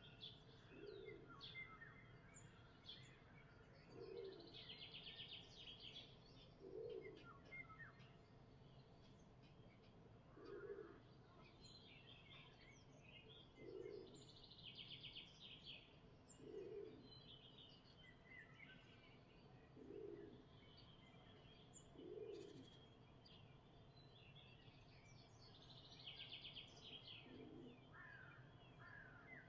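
Faint morning birdsong: several songbirds chirping, with quick trills now and then. A dove coos low about every three seconds underneath.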